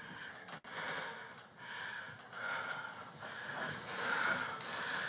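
A person breathing heavily through the nose: repeated breathy snorts and sniffs, about one every second or less.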